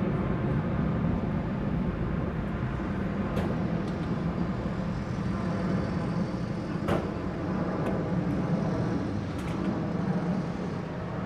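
Antonov An-178 twin-turbofan transport jet flying a steep banked turn overhead, its engines giving a steady, even rumble. A few sharp clicks cut through it, the clearest about seven seconds in.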